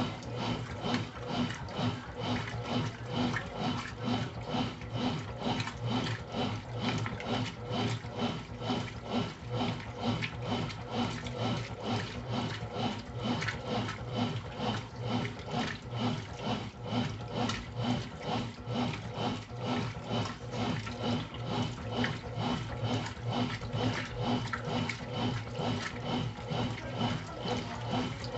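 Brastemp Intelligent top-load washing machine washing: water churning in steady, rhythmic strokes over a continuous motor hum, repeating about twice a second.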